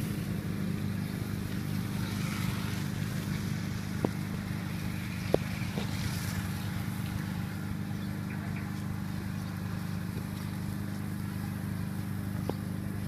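Steady low hum of a small engine running, with a few sharp clicks, the loudest about four and five seconds in.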